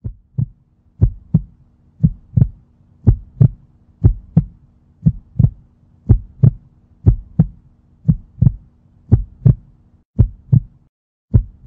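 A heartbeat sound effect: paired thumps, about one double beat a second, over a faint steady low hum that drops out near the end.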